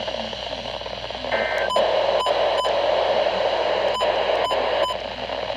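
Weather radio broadcast hiss after the end of the spoken alert. About a second in there is a brief two-pitch data burst, then six sharp clicks in two groups of three.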